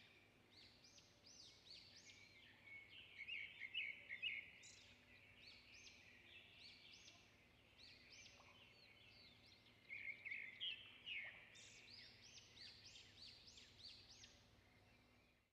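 Small birds chirping: a busy run of quick, high, sweeping chirps, faint overall, with two louder flurries, about a quarter of the way in and again about two thirds of the way in.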